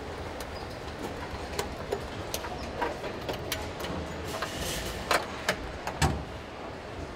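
Car assembly line noise: a steady machinery hum with scattered sharp metallic clicks and knocks, a few louder ones about five and six seconds in.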